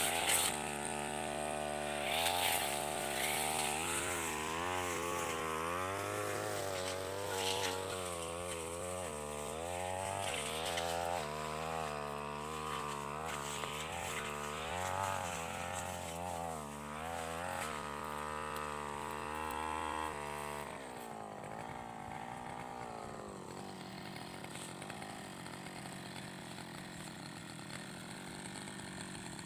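Brush cutter engine running, its pitch rising and falling again and again as it cuts through weeds. About 21 seconds in it drops to a quieter, steady idle.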